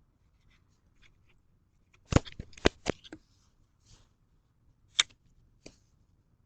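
A quick cluster of four sharp knocks about two seconds in, then a single sharp knock near the five-second mark and a fainter one just after.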